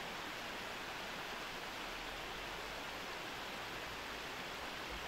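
Small brook spilling steadily over a low stone weir, a constant even rush of water.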